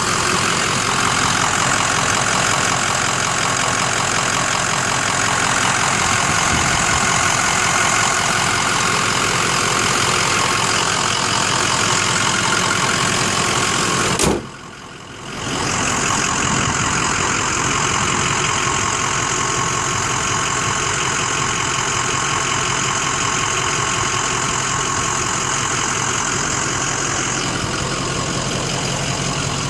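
Ford F450 Super Duty's 6.0 L Power Stroke V8 turbo-diesel idling steadily, with a brief dropout about halfway through.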